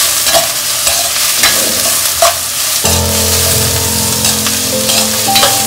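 Sliced vegetables sizzling in hot oil in a kadhai while a steel spatula stirs and scrapes them, with a scrape or knock of the spatula about once a second. Steady low tones come in about halfway.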